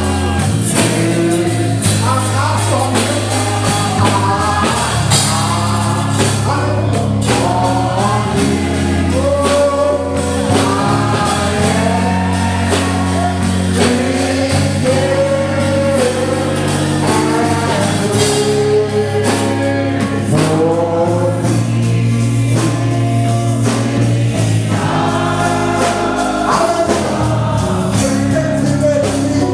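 Live gospel praise-and-worship music: several voices singing together over a band, with sustained bass notes changing every few seconds.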